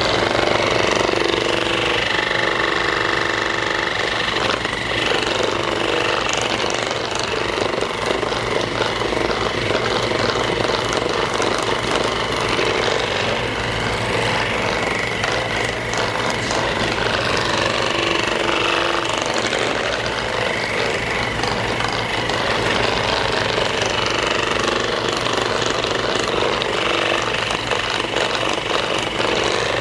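Percussive massage gun running continuously, its motor hammering in rapid pulses, with its hum shifting in pitch now and then as it is worked over the body.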